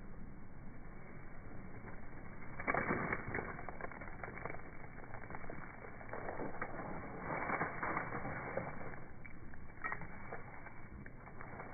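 Dry fallen leaves rustling and crackling, with louder crunchy stretches about three seconds in and again about seven seconds in.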